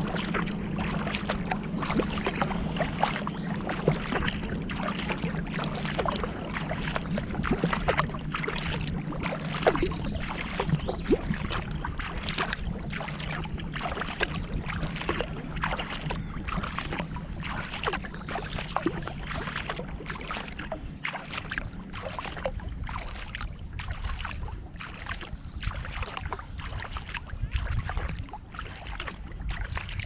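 A kayak being paddled over calm water: a steady wash of water along the hull, broken by many small, irregular splashes and drips from the paddle strokes.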